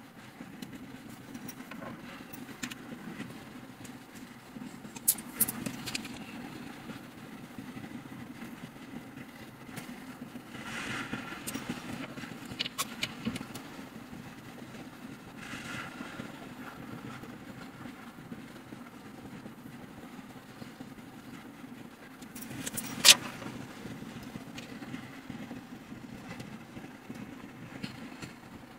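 Hand assembly of an IKEA flat-pack cabinet: scattered knocks and clicks of panels and a hand tool, the loudest one about two-thirds of the way through, with a couple of brief rustles. A steady low hum runs underneath.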